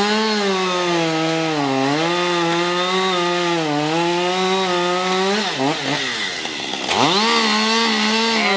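A chainsaw running at high revs, cutting the notch into a tree trunk, its pitch dipping each time the chain bites. About five and a half seconds in, the engine falls back toward idle, then revs up again near seven seconds.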